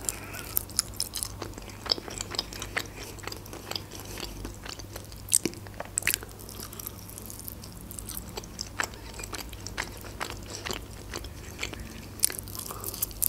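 Close-miked eating of chicken wings in tomato sauce: crunchy bites and chewing as a run of small sharp clicks, with louder bites about five and six seconds in and again near the end.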